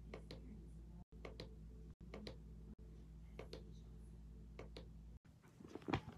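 Faint clicks, often two close together, every second or so over a steady low hum, then a louder brief handling noise near the end.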